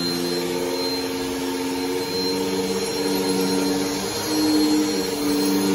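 Upright bagless vacuum cleaner running on carpet: a steady motor drone whose pitch shifts up and down a little as it is worked across the floor, slightly louder about four and a half seconds in.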